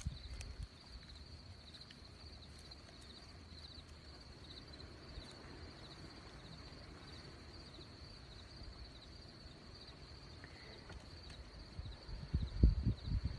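Faint outdoor ambience: insects keep up a steady high trill with small regular chirps over a low rumble. Near the end come several loud, low thumps.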